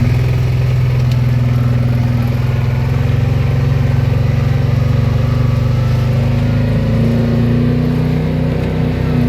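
Vehicle engine pulling away and then running steadily under way at an even pitch.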